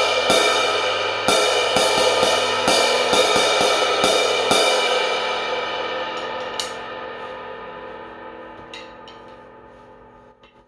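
A 20-inch Zildjian K Sweet Brilliant crash cymbal (a prototype) is struck repeatedly with drumsticks for about four and a half seconds. It is then left to ring, its shimmering wash slowly fading away, with a few light clicks near the end.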